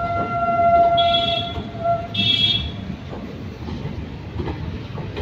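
Train horn sounding one steady note for about two seconds, with two short, higher-pitched blasts at about one and two seconds in, over the steady rumble of the moving train.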